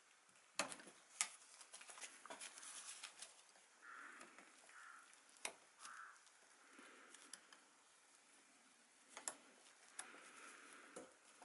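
Faint, scattered light clicks and taps of workshop handling, with a few soft rustles in the middle and no engine running.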